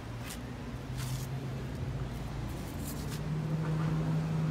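A motor engine humming steadily, its pitch stepping up about a second in and again about three seconds in as it grows louder, with a few short rustles over it.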